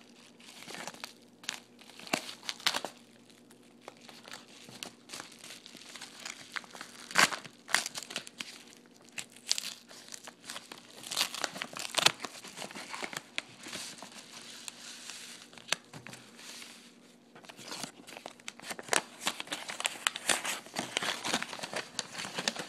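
Yellow padded paper mailer being torn open and crinkled by hand: irregular crackling and tearing with a few sharper, louder crackles, then a paper sheet rustling as the contents are taken out near the end.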